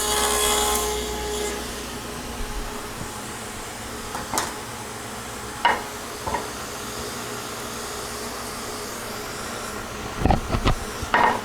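Table saw with a dado stack running on and winding down over the first couple of seconds. Then wooden knocks and taps: one, a pair, and a quick cluster near the end, as a piece of plywood is tried in the freshly cut dado.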